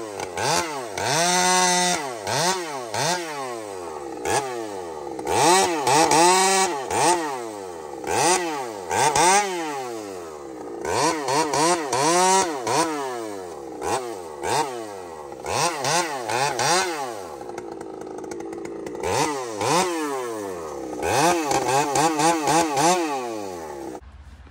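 Two-stroke gas chainsaw cutting logs into firewood, revving up and down in quick bursts over and over. It cuts off abruptly near the end.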